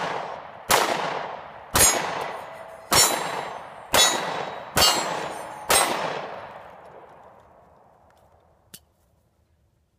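Six shots from a Smith & Wesson M&P Shield 9mm pistol, fired roughly a second apart, each followed by a long fading echo.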